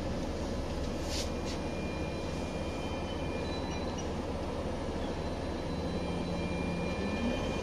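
Scania OmniLink city bus engine running steadily, heard from inside the passenger cabin, with a short hiss about a second in. Near the end the engine note starts to rise as the bus begins to pull away from the stop.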